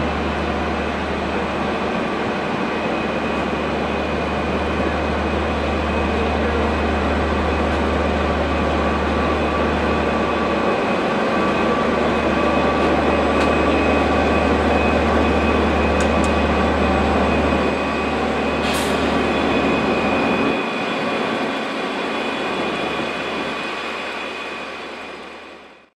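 Irish Rail 201 Class diesel-electric locomotive passing slowly, its EMD two-stroke V12 engine running with a steady low drone and a faint whine on top. The sound is loudest as it draws level. There is a brief high squeal about three-quarters of the way through, and the sound fades out at the very end.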